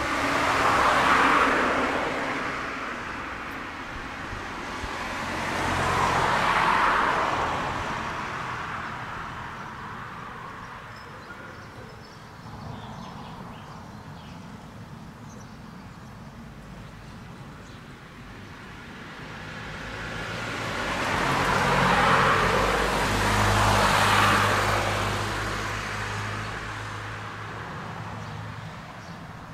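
Several cars driving past one after another, each one's engine and tyre noise swelling and fading away; two pass close together near the end.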